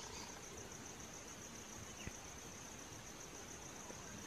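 Quiet woodland background: a steady, high-pitched drone of insects over a faint hiss.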